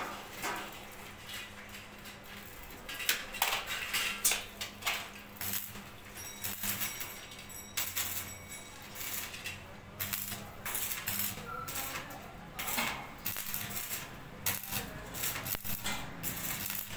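Stick (arc) welding of a steel window grill: short bursts of crackling and sizzling at the electrode as bars are tack-welded, with metallic clinks in between, over a low steady hum.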